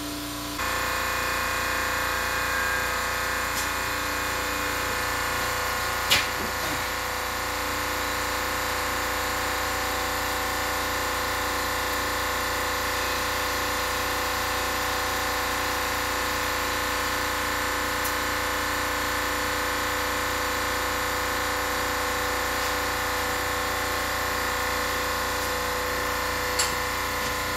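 Air compressor running steadily while air is fed into the ATV's tires, starting about half a second in, with a single sharp click about six seconds in.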